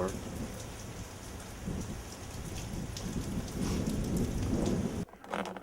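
Heavy rain from a hurricane feeder band, a steady hiss of rain with a low, uneven rumble beneath it, cutting off abruptly about five seconds in.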